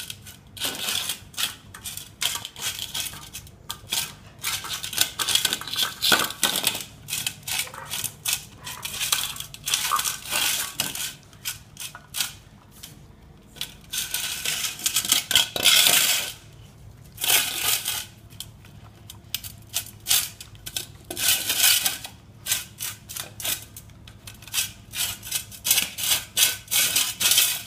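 Two dogs eating food from plates: rapid, irregular clicking and clinking of their dishes and food as they chew and lick, in bursts separated by brief pauses.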